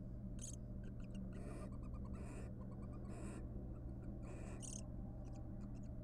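Barn owls calling softly to each other while preening: about six short, raspy calls roughly a second apart, with faint clicking between them, over a steady low hum.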